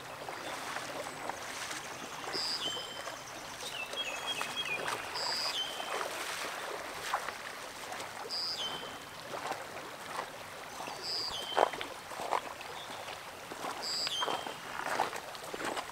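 Shallow stream running over gravel, with water sloshing and splashing as an angler wades through it. A songbird repeats a short phrase, a high note then a lower one, about every three seconds.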